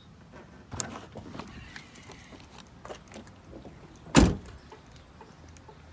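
A few light knocks and rattles of hands and tools on the car, then one loud, short thump about four seconds in.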